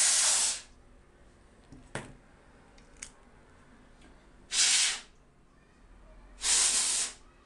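Three short hissing blasts of air, each about half a second, blown over the cleaned laptop parts to clear dust. There are two light clicks between the first and second blasts.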